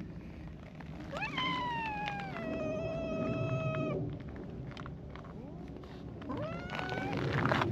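A cat meowing twice: a long drawn-out call starting about a second in, falling and then held level for some three seconds, and a shorter rising call near the end.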